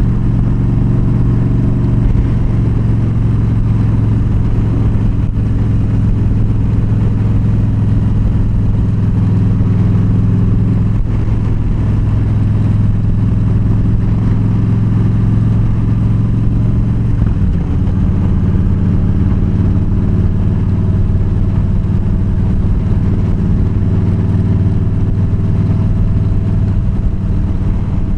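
Yamaha V Star 1300's V-twin engine running steadily at cruising speed. About seventeen seconds in, its pitch dips briefly, then settles again.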